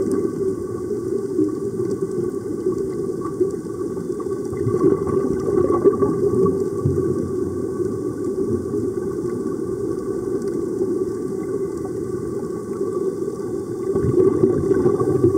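Muffled underwater noise: a steady low rumbling and bubbling of air streaming out of sea-walking diving helmets, heard through an underwater camera housing, swelling slightly near the end.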